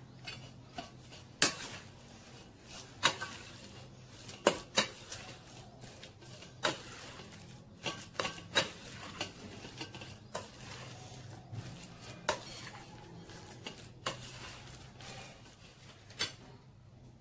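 Kitchen utensils clinking and knocking against metal dishes and bowls: sharp, irregular clinks every second or so.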